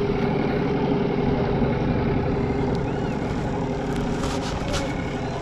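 Outboard motor of a small fishing boat running steadily, a constant drone with a steady tone under it.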